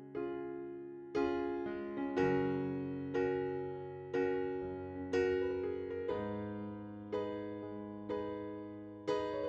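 Background music: a gentle piano or electric-piano tune with chords struck about once a second, each fading before the next.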